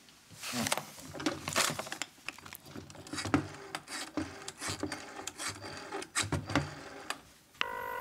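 Corded desk telephone being dialed: a run of irregular clicks and knocks from the dial and handset. Near the end a steady ringing tone starts in the line, cut off after under a second.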